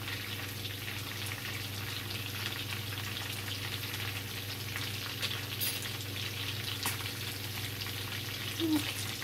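Chicken pieces frying in a pan of oil, butter and lemon juice: a steady sizzle with crackling spatter, and a couple of sharp clicks a little past the middle.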